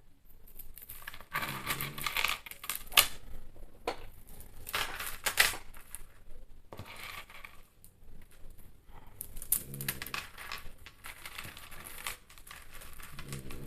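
Bead necklaces being handled, the beads clicking and rattling against each other and the table. A bulldog snores in the background, a low snore now and then.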